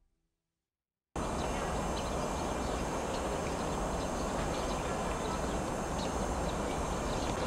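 About a second of silence, then steady outdoor stadium ambience picked up by the camera microphone: an even hiss over a low rumble, with faint scattered clicks.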